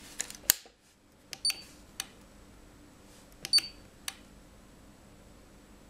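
Button presses on a Sonel MRP-200 RCD tester as its test settings are changed: about six sharp plastic clicks over four seconds, two of them with a short high beep.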